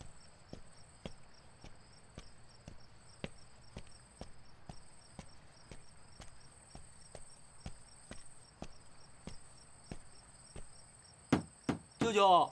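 Crickets trilling steadily, with a soft tick about twice a second. Near the end come two louder knocks, then a loud falling, wavering tone, like something blown.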